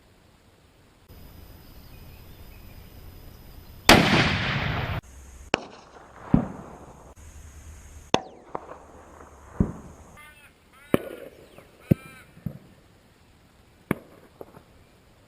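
Rifle shots recorded at different distances, spliced one after another. A loud, close blast comes about four seconds in, then a string of about nine fainter, sharp cracks and booms, several with a short trailing echo.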